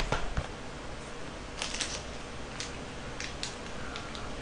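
A knock as a cardboard box is set down on a table, then a small plastic KitKat wrapper being torn open and crinkled by hand, in a few short scattered rustles.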